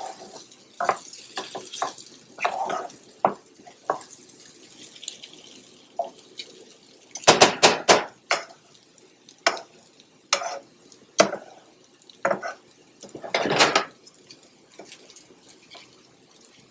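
Wooden spoon scraping and tapping against a pan as dry rice and diced vegetables are stirred and toasted. The scrapes come irregularly, with louder stretches of stirring about seven seconds in and again near thirteen seconds.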